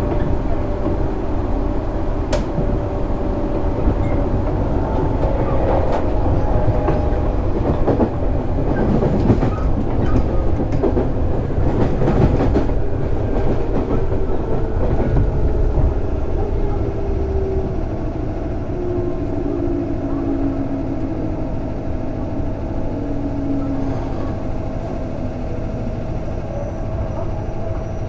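JR East 205-600 series electric train running, heard from inside the car: a steady rumble of wheels on rail with clicks over rail joints and the motor whine. In the second half the whine falls in pitch as the train slows.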